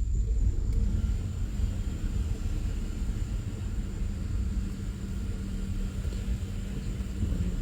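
Low steady rumble of a running vehicle, with a steady hum that sets in about a second in.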